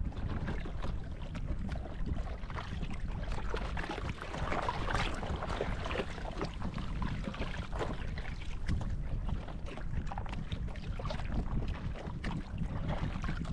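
Small waves lapping and splashing against the hull and outrigger float of a small outrigger canoe at sea, with a steady low wind rumble on the microphone.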